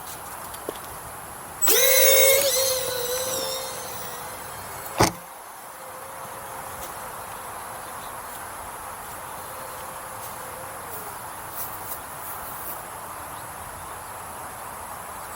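Small single-cell electric ducted fan on an RC model plane whining, with a sudden throttle-up about two seconds in. The whine then eases and holds as a faint steady tone before dropping away past the middle. There is a sharp click about five seconds in.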